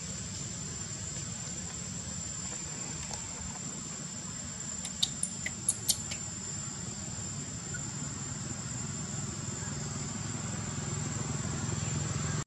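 Steady outdoor background hiss with a thin, high insect drone, broken about five to six seconds in by a quick run of five or six short, high squeaks from a baby macaque being handled by its mother; the sound cuts off abruptly at the end.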